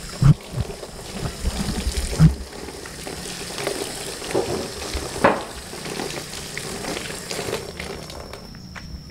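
Water running from an outdoor wall tap and splashing over hands into a plastic basin while they are washed. The flow fades away near the end. A few low thumps come in the first two seconds.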